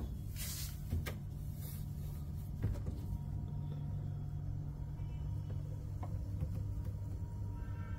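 Glass-door minibar fridge being opened and handled: a few short clicks and knocks from the door, over a steady low hum.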